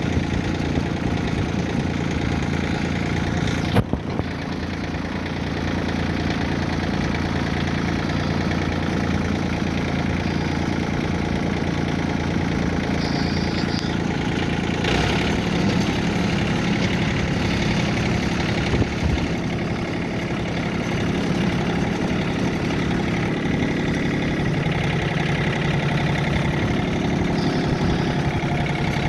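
Engine of the machine carrying a roof truss running steadily, with a short knock about four seconds in and a change in the engine's note about halfway through.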